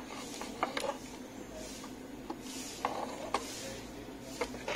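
Small scattered clicks and taps as an electronic switch and a circuit board are handled and the switch is fitted into the board, with a louder crackling rustle at the very end.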